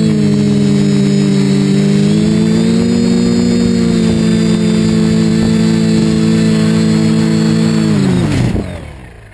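Quadcopter's electric motors and propellers humming steadily, picked up by the onboard camera, the pitch shifting a little as the throttle changes. About eight seconds in the motors spool down, the pitch falling quickly, and the sound dies away as the craft comes down into the crop.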